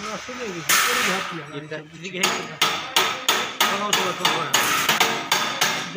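A loud scraping clatter about a second in, then a quick even series of sharp metal-on-metal knocks, about three a second, like hammer blows on steel.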